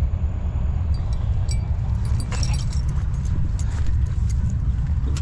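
Steady low rumble with scattered light clicks and jingling over it.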